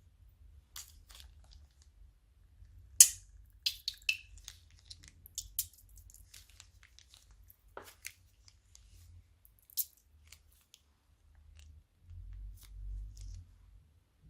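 Slime-making handling sounds: scattered short, crisp snaps and crackles from plastic piping bags and crunchy slime, the loudest about three seconds in. A low rumble follows near the end.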